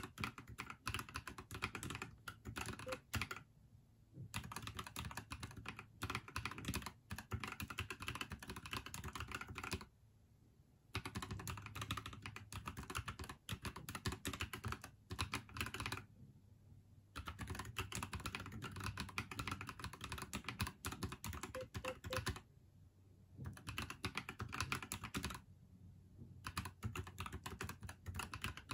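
NuPhy Halo75 mechanical keyboard being typed on fast, a dense run of key clicks broken by about five short pauses of around a second.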